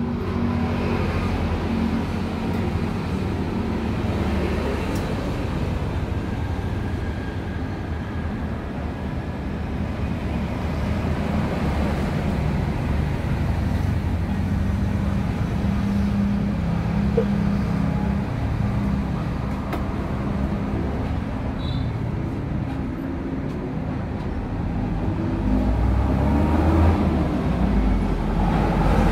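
Steady low rumble of motor traffic, growing louder over the last few seconds.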